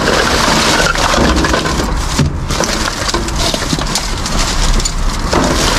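Plastic rubbish bags, paper and cardboard rustling and crackling as hands rummage through a wheelie bin, with many short crackles.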